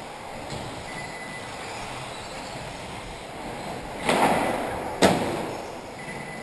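Radio-controlled racing cars running on an indoor track under a steady background noise, with a faint thin whine passing twice. About four seconds in come two loud noisy bangs about a second apart; the second starts sharply and echoes away in the hall.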